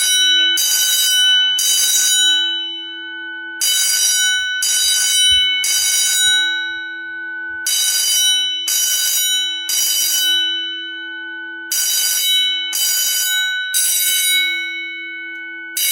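Red fire alarm bell ringing in the Code 3 (temporal-three) evacuation pattern: three rings about a second apart, a short pause, then three more, repeating. Its tone hangs on between strikes.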